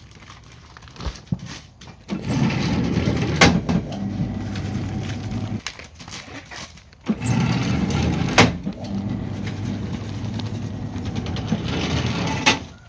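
Baglog press machine running twice, a few seconds each time, its motor humming steadily with one sharp clack during each run, as it packs mushroom growing medium into plastic bags.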